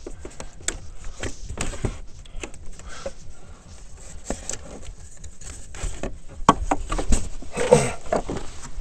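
Irregular clicks, knocks and scrapes of hands handling a rubber intake hose and its fittings in an ATV's engine bay.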